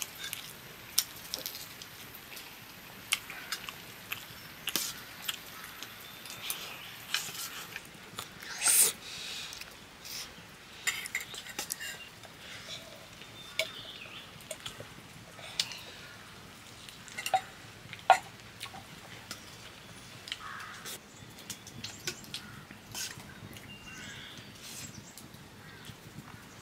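Steel spoons clinking and scraping on steel plates during a meal: scattered sharp clicks over a quiet room, with a louder rasping burst about nine seconds in.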